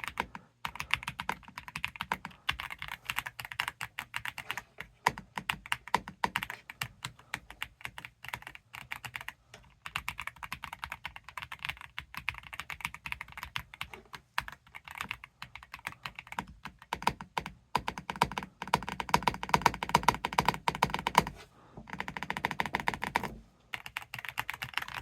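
Fast, continuous typing on a Redragon K686 Pro SE gasket-mounted mechanical keyboard, a dense run of key clicks with a couple of short pauses near the end.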